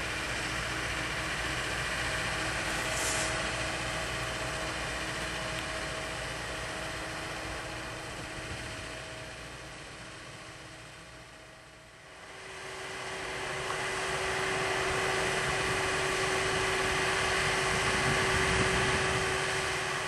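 Manitou MRT 1850 rotating telehandler running, its diesel engine and hydraulics working the boom, with a steady whine over the engine hum. The sound sinks to a low point about twelve seconds in, then swells again with a higher whine.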